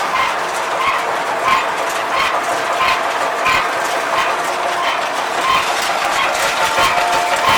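New Holland 660 round baler running: a steady mechanical clatter with a regular beat, a bit under two strokes a second.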